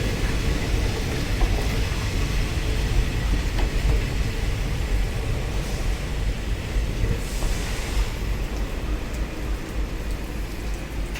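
Indian Railways train running on the track: a steady rumble that eases off slightly toward the end.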